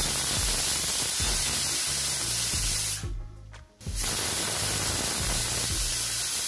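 Pressure cooker whistling: steam hissing hard out from under the weight valve, stopping for a moment about three seconds in, then blowing again. The whistles mark that the cooker is at full pressure and the dal is cooking.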